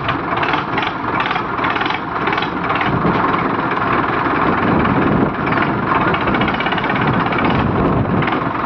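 Tractor diesel engines running hard under heavy load as two tractors chained back to back pull against each other, a loud, steady mechanical clatter.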